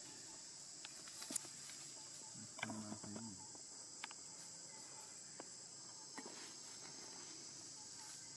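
Steady high-pitched drone of insects, with scattered faint ticks and, a little under three seconds in, a short low voice or call.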